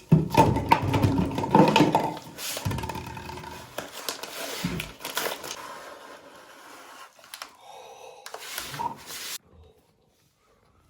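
Rustling, scraping and clicking of a box and its packaging being handled and opened, loudest in the first two seconds, then quieter, stopping abruptly about nine seconds in.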